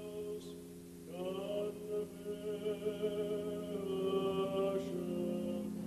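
A man's voice singing Jewish liturgical chant in long held notes with vibrato, a new phrase starting about a second in, over steady sustained lower tones.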